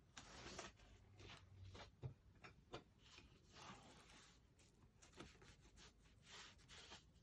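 Faint, short scratching strokes of a pen or pencil drawing lines around a tick stick laid on a sheet, about a dozen strokes in quick succession.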